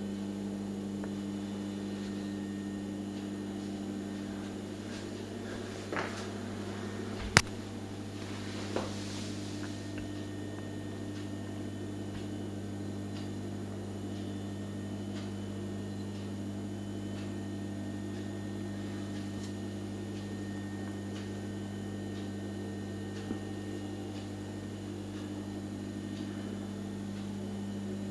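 Steady low hum with a few short clicks and knocks. The sharpest click comes about seven seconds in.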